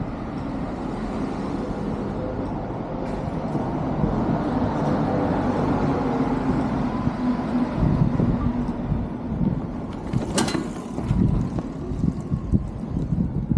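A motor vehicle passing close by, its engine and road noise building to a peak and then fading, with a steady low hum. A single sharp click about ten seconds in.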